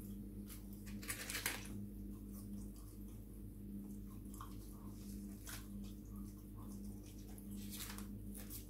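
Chip-shop paper wrapper rustling and crinkling in short, irregular bursts as fingers pick through chips lying on it, loudest about a second in, over a steady low hum.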